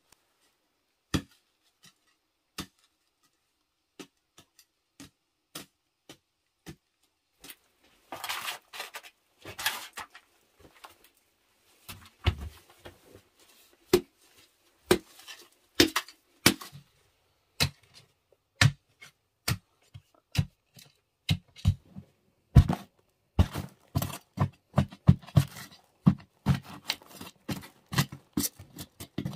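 Short-handled hoe chopping into packed clay soil: scattered single strikes at first, a stretch of scraping and loose earth falling about eight seconds in, then quickening strikes, several a second, through the second half.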